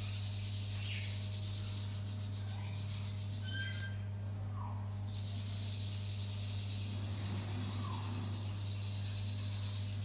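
A steady low electrical hum, with a faint high pulsing hiss over it and a few short high chirps and peeps, several close together about three seconds in.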